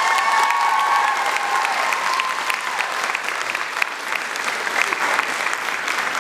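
Audience applauding with many hands clapping steadily. A high held tone fades out under the clapping about two seconds in.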